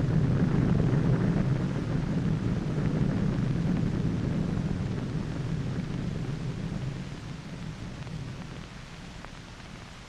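Deep, steady rumble of an underwater atomic bomb blast on an old film soundtrack, with hiss above it, slowly dying down through the seconds and fading most after the midpoint.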